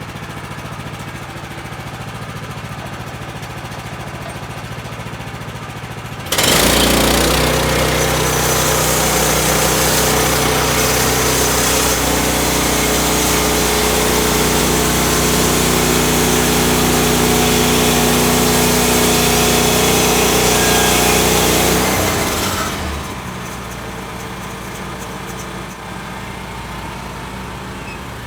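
Portable band sawmill's engine idling, then suddenly running much louder at high throttle with the band blade going for about sixteen seconds, then dropping back to idle.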